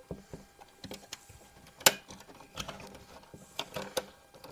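Small clicks and taps of metal and plastic parts as a Daisy 188 BB pistol's internals are handled and fitted back together, with one sharper click about two seconds in.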